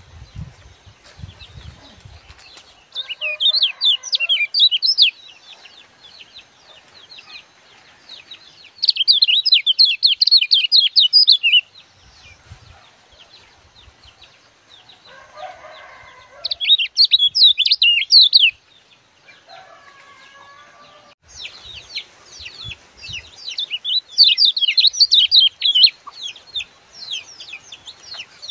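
Common iora (kecial kuning) singing: loud bursts of rapid, high chattering notes, each lasting one to three seconds, repeated every few seconds. The longest spell comes in the last third.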